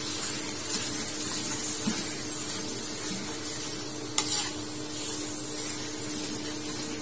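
Chopped green chillies, shallots, garlic, lemongrass and leaves sizzling in hot oil in a stainless steel wok while a spatula stirs and scrapes them, the aromatics being sautéed until they wilt. A steady hum runs underneath, and the spatula clacks sharply against the wok about four seconds in.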